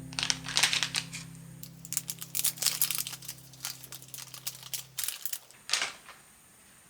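A rapid, irregular run of sharp clicks and crinkly rustles, like small objects being handled. Under it, a held low background-music chord stops suddenly about five seconds in.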